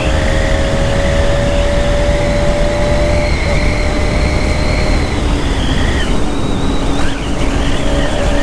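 Bajaj Pulsar RS 200's single-cylinder engine running at high revs under way, a steady drone over heavy wind rush. Its pitch drifts slowly, and about seven seconds in it briefly drops and dips in level before picking up again.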